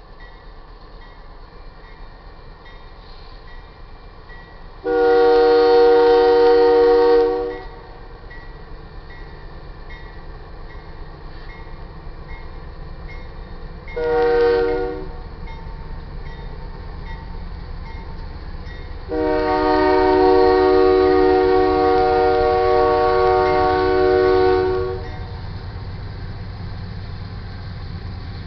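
Air horn of a GE AC4400CW diesel locomotive leading a loaded coal train: a long blast, a short one, then a longer one, each a steady multi-note chord. Underneath, the locomotive's diesel engine rumbles steadily, growing louder near the end.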